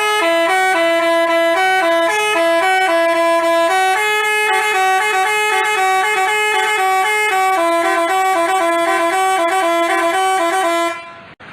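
Telolet basuri bus horn playing a tune of short notes that step up and down, two pitches sounding together. It cuts off suddenly about a second before the end.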